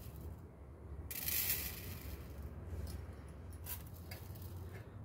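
Uncooked long-grain rice sprinkled by hand onto a stainless steel plate. A short soft hiss of grains landing comes about a second in, followed by a few light ticks of single grains.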